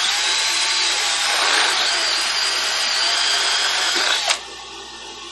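Cordless drill boring a hole through a plastic engine oil pan. It runs with a steady, slightly wavering whine, then cuts off suddenly about four seconds in once the hole is through.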